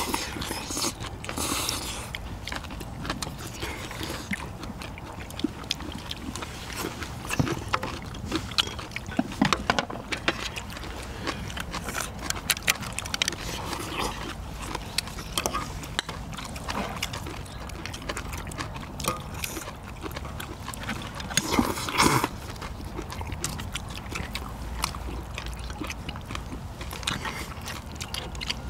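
People eating braised spicy seafood: chewing and mouth sounds, with chopsticks and a ladle clicking against bowls and a steel tray.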